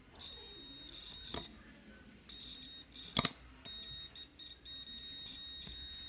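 A digital multimeter's continuity beeper gives a steady high-pitched beep in three stretches, the last the longest and broken up, as the probes contact the fan's speed selector switch set to speed 1. The beep shows continuity through that switch position. Two sharp clicks cut in, the louder one about three seconds in.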